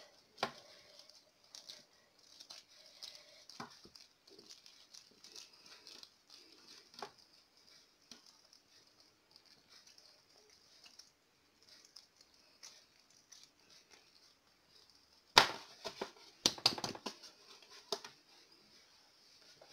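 Hands rolling and tucking a soft, oiled ball of dough on a tray: faint rubbing and light pats, then a short run of louder knocks and slaps about three-quarters of the way through.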